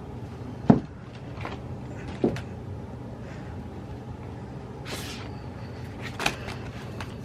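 Handling of planner sticker sheets on a desk: three separate knocks with a short papery rustle between them, over a steady low hum.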